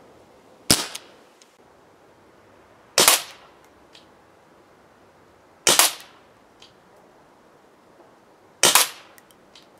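ASG Dan Wesson 715 CO2 airsoft revolver firing four sharp shots about two and a half to three seconds apart. Each shot dies away quickly, and a faint tick follows some of them.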